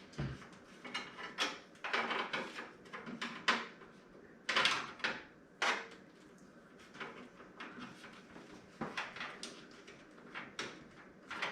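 Hands working with computer parts and cables: irregular clicks, knocks and rustling of plastic and metal being handled and fitted.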